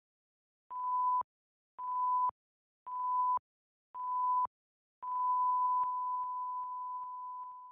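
Electronic countdown beeps, all at the same single pitch: four short beeps about a second apart, then a long held beep that fades out near the end.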